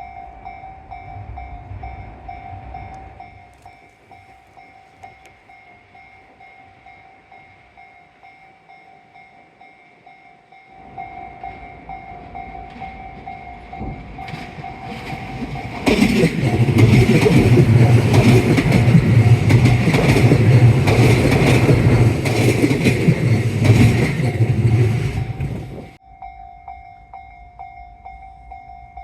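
Tobu Railway 10000-series electric multiple unit passing. Its rumble builds from about a third of the way in, is loud for about ten seconds, then cuts off suddenly. A thin repeating tone is heard before and after the train.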